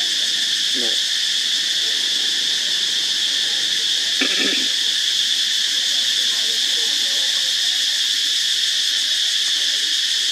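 Steady, high-pitched drone of a forest insect chorus. A short pitched call cuts in briefly about four seconds in.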